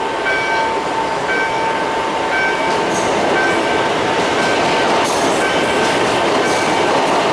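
Electronic level-crossing bell (EMAVE "Campanario") chiming about once a second over a steady tone, while an electric commuter train comes through the crossing. The train's running noise swells from about three seconds in, with its wheels clicking over the rail joints.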